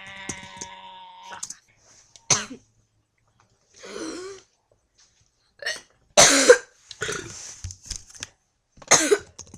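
A girl coughing and gagging in several short, sharp bursts with gaps of silence between them, the loudest about six seconds in; she brings up a little vomit. A drawn-out voice sound fades out in the first second and a half.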